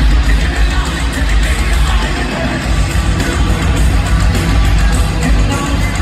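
Loud live heavy-metal band playing, with distorted electric guitar and drums.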